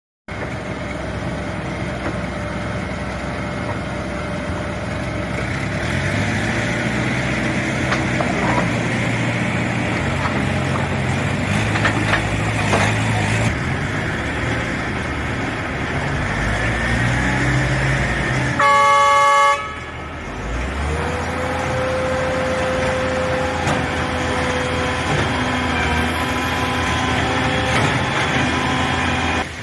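Truck-mounted concrete boom pump and forced mixer machinery running steadily. A horn sounds once for about a second just past the middle, the loudest sound, and a steady whine comes in after it.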